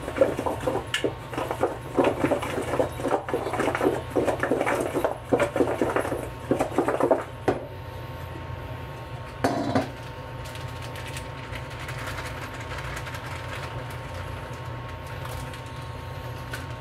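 Irregular clattering and knocking of kitchen items for the first several seconds, one more knock near the middle, over a steady low hum.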